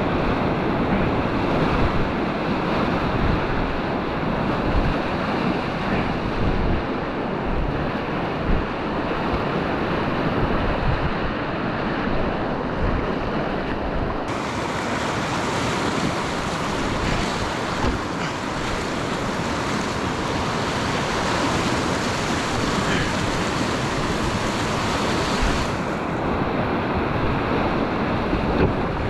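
Whitewater rapids of a river in high flood flow rushing and churning around a packraft, a steady loud roar of water. From about halfway through until near the end the rush turns sharper and hissier.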